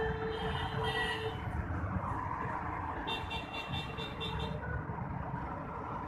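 Traffic on a flooded road: vehicles driving through standing water, a steady low rumble mixed with water noise. About three seconds in, a high tone sounds for about a second and a half.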